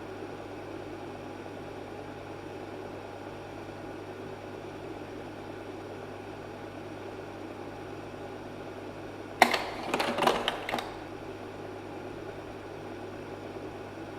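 Slide projector's cooling fan running with a steady hum, then, about two thirds of the way through, a quick run of sharp mechanical clacks as the projector changes slides.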